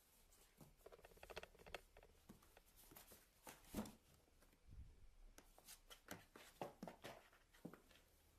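Near silence broken by faint, irregular clicks and taps, the loudest a little under four seconds in.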